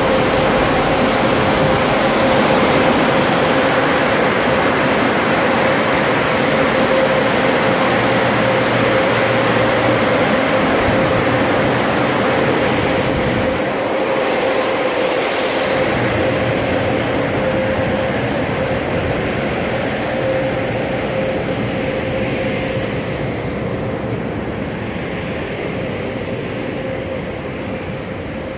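Automatic car wash dryer blowers running: a steady, loud rushing noise with a constant tone, growing a little fainter over the last few seconds.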